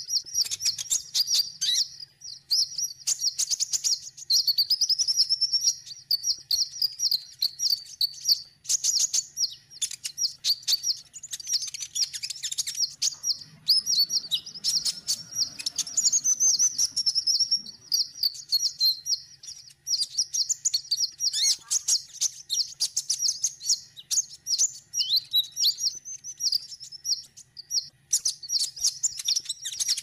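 Sunbird song: a fast, continuous stream of high, thin twittering and chattering notes with hardly a pause, from a male sunbird displaying to a female.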